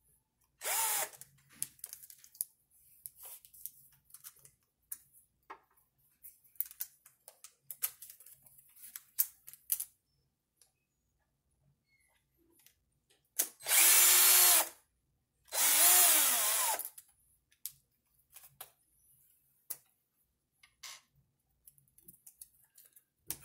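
Small cordless power driver backing screws out of an RC truck's front suspension. It runs in three short bursts, each with a rising and falling motor whine: a brief one near the start and two of about a second each past the middle. Small clicks of parts and screws being handled come between them.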